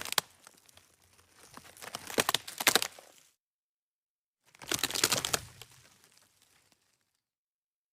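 Wood breaking and splintering: two bursts of crackling snaps with a few sharp cracks, one about a second and a half in and another about five seconds in, separated by dead silence.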